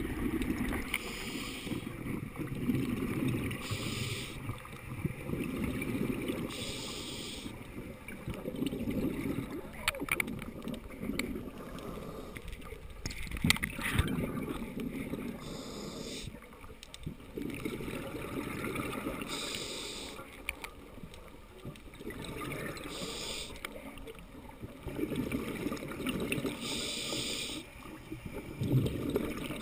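Scuba diver breathing through a regulator underwater: a short hissing inhale through the regulator every few seconds, alternating with the low bubbling gurgle of exhaled air.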